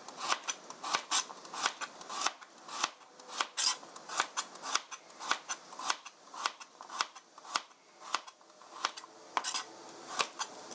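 Chef's knife slicing a carrot into thin rounds on a plastic cutting board: a sharp chop each time the blade meets the board, about three to four a second.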